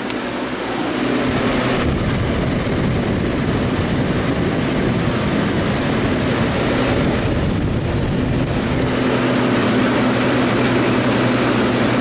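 Outdoor side of a 1963 General Electric Thinline through-the-wall air conditioner running: a steady compressor hum under the whoosh of the condenser fan blowing through the rear grille. It grows louder about a second in as the microphone closes in on the grille.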